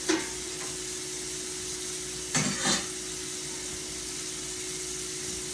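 Steady hiss of food cooking on a kitchen stove, over a constant low hum. There is a short clatter of kitchen utensils near the start and two more about two and a half seconds in.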